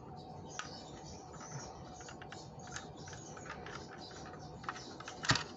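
Faint, irregular small clicks and taps of hands working a die-cast model car free of its plastic packaging, with a louder cluster of clicks near the end.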